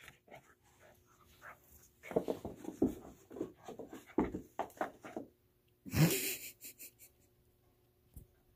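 A Yorkshire terrier and a Lhasa Apso play-fighting, growling in a run of short, irregular bursts from about two seconds in, then one louder, longer growl about six seconds in.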